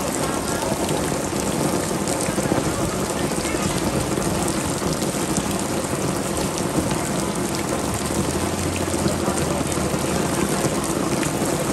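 Heavy rain falling steadily onto floodwater: a dense, even hiss made of countless small drop impacts.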